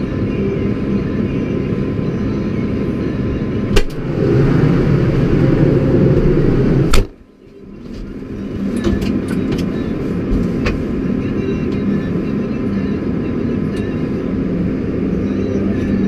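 Tractor engine running steadily. It grows louder for a few seconds, and a sharp knock about seven seconds in is followed by a brief drop in the sound before it returns.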